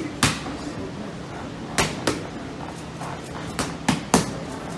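Boxing gloves smacking a trainer's pads in quick combinations: one sharp hit, a pair about two seconds in, then a fast run of three near the end.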